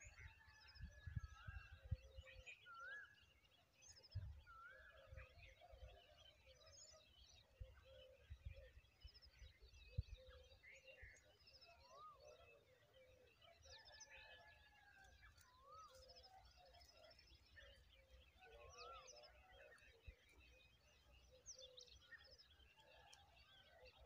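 Faint outdoor chorus of small birds chirping and calling. A short rising-and-falling whistled note repeats every few seconds, and low thumps come and go, mostly in the first half.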